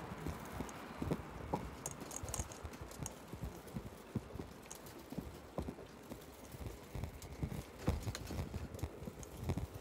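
Footsteps of a person walking on a paved street, close to the microphone: a string of sharp knocks about two a second.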